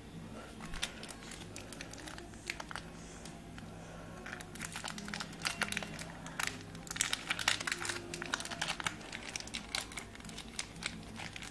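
Foil wrapper of a Pokémon HeartGold SoulSilver booster pack crinkling and crackling as it is handled and worked open by hand, the crackle growing denser about halfway through. The pack is hard to get open, and the opener calls it annoying.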